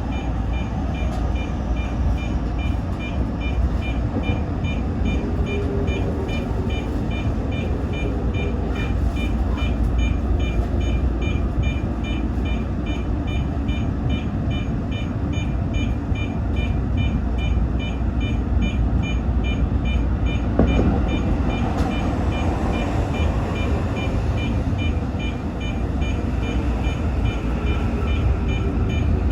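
Steady low hum of a Toyo Rapid Railway 2000 series electric train standing at a station platform, with a rapid, evenly spaced high beeping repeating throughout.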